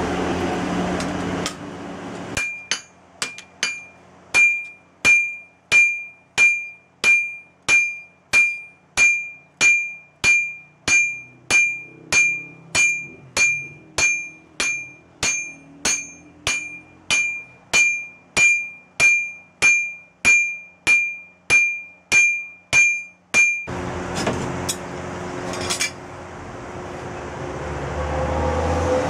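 Hand hammer striking red-hot leaf-spring steel on an anvil while forging a sickle blade: evenly paced blows, about one and a half a second, each with a bright ringing ping from the anvil, for about twenty seconds. A steady rushing noise comes before the hammering and returns after it stops.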